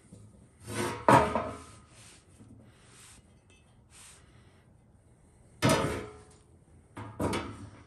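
A steel rear axle shaft being handled and wiped down with a rag on a steel-topped table: scraping, rubbing strokes with three sharper knocks, about a second in and twice more near the end, as the shaft shifts against the table.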